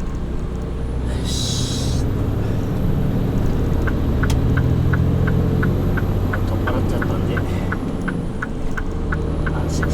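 A Mitsubishi Fuso Super Great truck's 6R20 inline-six turbo diesel running steadily. There is a short hiss of air about a second in. From about four seconds in comes an even ticking, three to four ticks a second.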